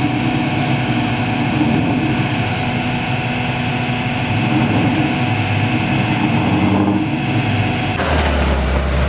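A flatbed tow truck running with its hydraulics engaged while its winch draws a car up the tilted bed: a steady mechanical drone with a whine held at one pitch. About eight seconds in it turns to a deeper, heavier hum.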